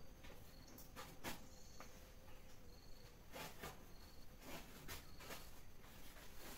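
Scattered dull knocks and thumps, about seven in all, from slabs of coagulated raw rubber being shifted about in a truck bed. Faint short high insect chirps repeat about once a second behind them.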